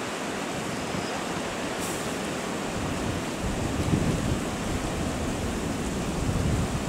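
Steady outdoor noise with wind buffeting the microphone, the low rumble of the buffeting growing stronger about three and a half seconds in.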